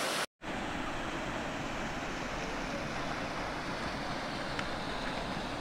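Steady rush of falling water from the Lower Falls of the McCloud River, a 15-foot cataract pouring into a deep pool, after a brief cut to silence right at the start.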